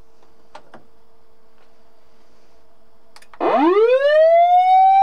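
Osaka Siren MK-11 fire-engine siren amplifier starting its wail: about three and a half seconds in, a loud electronic tone sweeps steeply up from a low pitch and levels off high. Before it, a steady faint hum with a couple of soft clicks.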